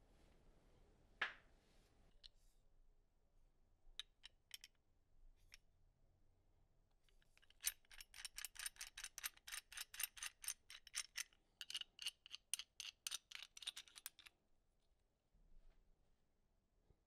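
The knurled adjusting nut of a restored antique W&B railroad wrench being spun by thumb, giving a quick run of light metallic clicks, several a second, that lasts about six seconds. A single click and a few scattered ones come before it.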